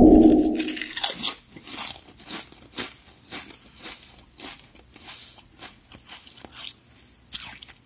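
Crisp crunching about two times a second: a mouth chewing a stacked pair of Lay's potato chips, one chicken-and-tomato and one cucumber. It opens with a loud muffled rumble that fades within the first second.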